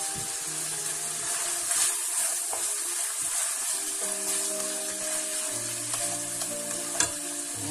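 Crumbled sausage meat sizzling as it fries in olive oil in a stainless steel pan, stirred and scraped with a spatula, with one sharp knock of the spatula on the pan near the end. Background music plays underneath.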